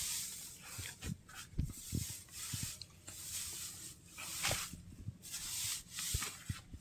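Dry straw bedding rustling in repeated bursts as hands rummage through it, with a few soft thumps.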